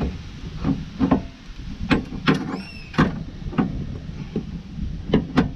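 Irregular knocks and clunks of brake parts being handled on a car's rear wheel hub, about eight in all, with a short metallic squeak about two and a half seconds in.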